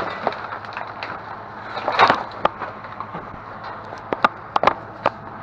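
Discarded lamp parts and light fixtures knocking and clattering as they are shifted around in a dumpster. There is a louder scrape about two seconds in and a few sharp clicks near the end.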